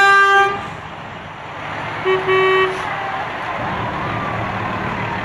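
Vehicle horn honking twice, a steady blast of about half a second at the start and another about two seconds in, over the low engine rumble of passing parade vehicles.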